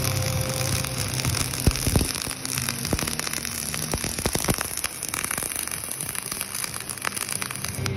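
Flux-core wire-feed welding arc crackling and spitting steadily, with frequent sharp snaps, as a fill or cap bead is laid on a bevelled pipe joint.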